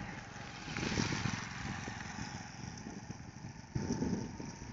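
A scooter's small engine running steadily, with low rumbles of wind noise on the microphone about a second in and near the end.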